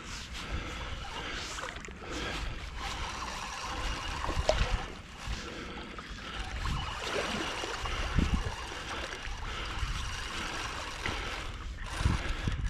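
Lake water splashing and trickling close to the microphone, with a steady low rumble underneath and a few louder splashes about four and eight seconds in.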